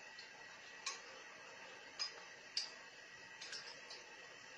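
A faint, steady hiss with about six short, sharp clicks at irregular intervals.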